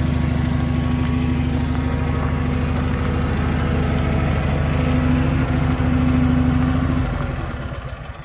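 Bobcat 440 skid steer's engine running steadily, then shut off about seven seconds in and dying away.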